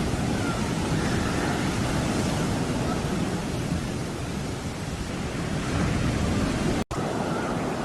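Heavy sea surf: waves breaking and surging, with wind rumbling on the microphone. The sound drops out for an instant about seven seconds in.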